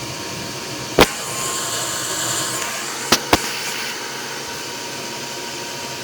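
Gas furnace running with its circulating blower on, a steady whir, broken by a loud sharp click about a second in, a short hiss, and two quick clicks about three seconds in.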